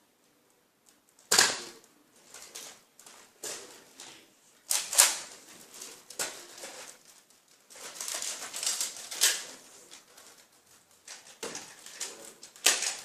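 Irregular sharp clacks and knocks with rustling between them, in a small room; the loudest clack comes about a second in.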